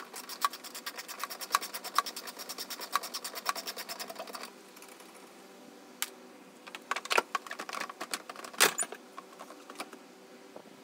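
Socket ratchet with an extension clicking rapidly and evenly for about four seconds as it spins the headlight mounting bolts out. Then come scattered sharp clicks and knocks from the tool and the headlight housing being handled.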